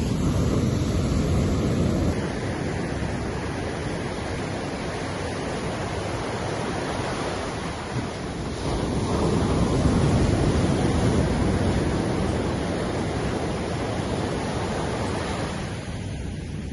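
Ocean surf washing onto a sandy beach: a continuous rush of breaking waves that swells louder in the first couple of seconds and again from about nine to twelve seconds in.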